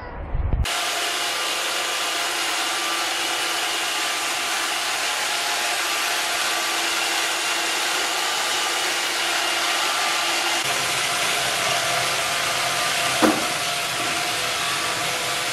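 Robot vacuum cleaner running: a steady whirring of its motor and brushes that starts suddenly within the first second and holds even throughout, with one brief louder blip about thirteen seconds in.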